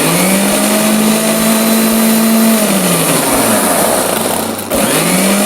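Electric mixer grinder (mixie) motor pulse-blending a runny egg-white and vinegar mix for mayonnaise. It whirs up to speed, runs for about two and a half seconds, is switched off and winds down, then starts up again near the end.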